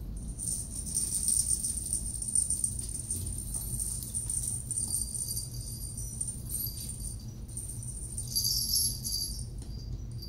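Small bells on kittens' collars jingling as the kittens move and play, on and off throughout and louder near the end.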